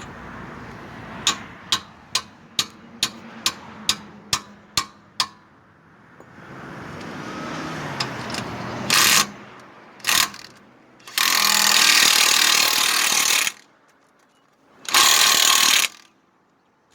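A run of about ten sharp clicks, a little over two a second, then an impact wrench running in bursts: two short ones, a long one of about two seconds, and a final short one.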